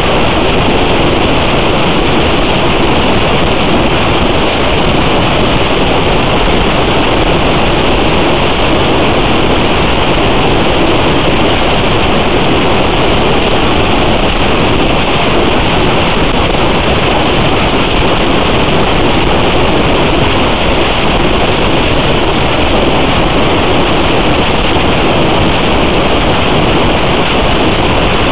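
Steady, loud rushing noise, even throughout, with no motor tone or other distinct sound in it.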